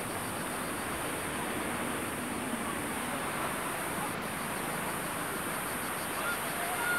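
Distant jet airliner's engines, a steady roar with a high steady hiss over it.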